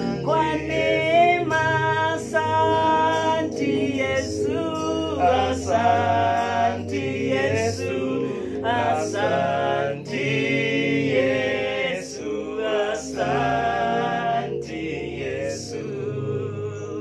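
Gospel worship singing by a group of voices, with no words spoken.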